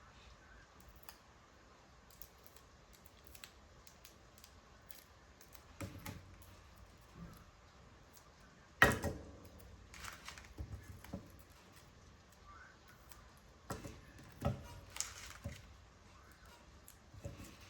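Scattered clicks, taps and rustles from hands working paper and craft tools, with one sharp, louder click about nine seconds in and quiet stretches between them.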